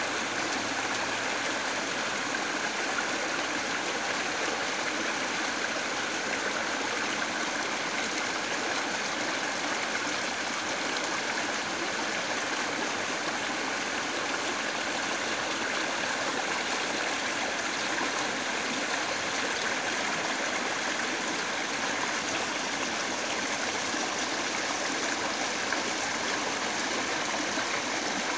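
River water flowing steadily over rocks and through a shallow riffle: an even, continuous stream sound.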